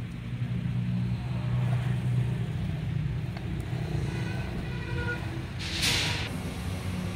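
A motor vehicle engine running steadily in the background, with a short burst of hiss about six seconds in.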